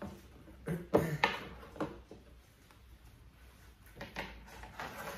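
Snap-on lid of a clear plastic tub being unclipped and pulled off: a few sharp plastic clicks and knocks in the first two seconds, the loudest about a second in, then lighter knocks near the end.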